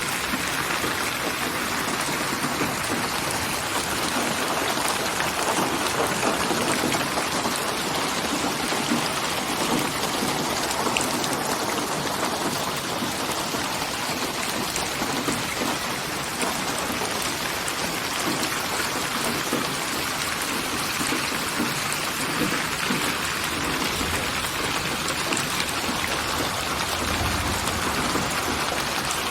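Steady rain falling, an even, dense patter of drops, with a low rumble near the end.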